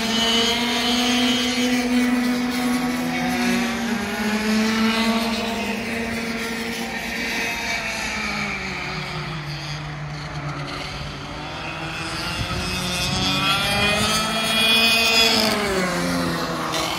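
Two-stroke racing kart engines running around a circuit, several at once, their pitch rising on acceleration and falling as they brake for corners. Near the end one kart passes close and its engine note drops sharply as it slows for a bend.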